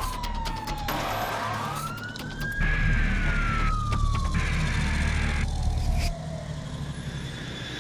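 A wailing siren sweeping slowly up and down in pitch: it falls, rises again about a second and a half in, then falls slowly for several seconds, over a steady low rumble.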